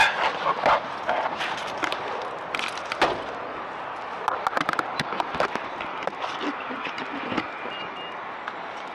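Steady background bustle with scattered sharp clicks and knocks and faint voices, like footsteps and handling noise while walking. A short high beep sounds near the end.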